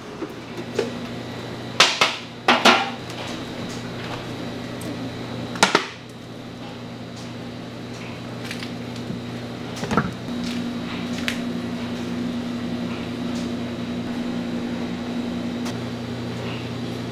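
Sharp knocks and clatters of tools on a hard work surface during peanut candy making: a cluster of loud strikes in the first six seconds and another about ten seconds in, with lighter ticks between them, over a steady machine hum.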